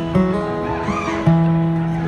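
Acoustic guitar strummed in a live song while a crowd of voices sings along, holding long notes.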